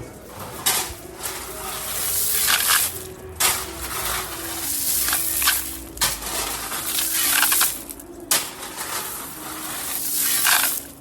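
No. 57 crushed stone being spread by hand, with repeated crunching, gritty scrapes that swell and break off about every one to two seconds.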